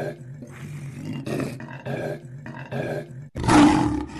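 Lion roar sound effect: several short growls about a second apart, then a loud roar starting about three and a half seconds in.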